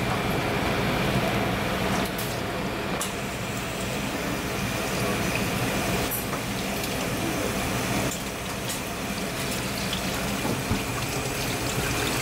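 Tap water running and splashing into a stainless steel sink as fish are rinsed under it, over a steady low hum.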